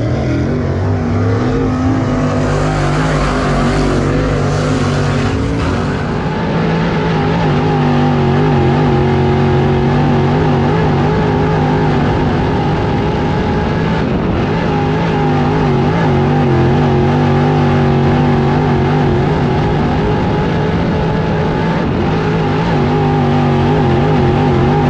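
Dirt late model race car's V8 engine at racing speed, heard from inside the car, its pitch rising and falling in a steady wave as the driver lifts and gets back on the throttle through the corners. For the first few seconds the sound is more distant, as if from the grandstand, before it changes to the in-car sound.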